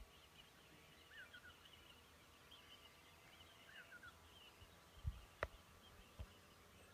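Faint birds singing, with continual high chirping and a short falling three-note phrase heard twice. A few soft thumps and one sharp click come about five to six seconds in.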